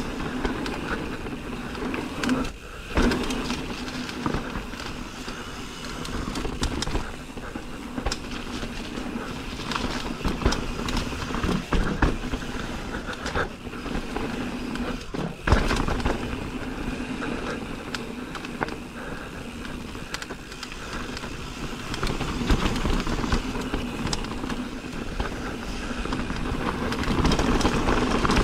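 Mountain bike riding down a rough dirt trail: continuous tyre noise with frequent knocks and rattles from bumps, over a steady low hum.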